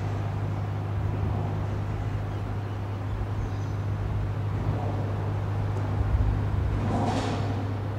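Steady low drone of a passing bulk carrier's engine, with a brief whoosh that swells and fades about seven seconds in.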